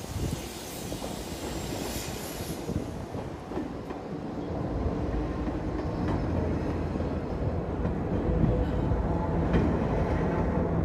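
Enoshima Electric Railway (Enoden) train running over a street level crossing. Its wheels rumble on the rails, growing louder over the first half and then holding steady.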